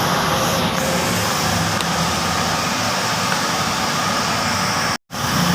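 Steady, loud background noise with a low hum, like passing traffic or an engine. It cuts out completely for a split second near the end.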